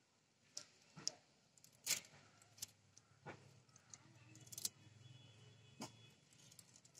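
Faint, scattered clicks and scrapes of a small fish being cleaned by hand against a boti, a curved Bengali fish-cutting blade, over a plastic sheet. A faint low hum runs under it for a few seconds in the middle.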